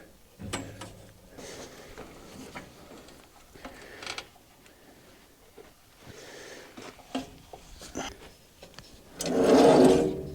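Scattered light knocks and clicks of handling at a portable sawmill, then near the end a loud, steady engine-like running sound for about a second that drops away briefly.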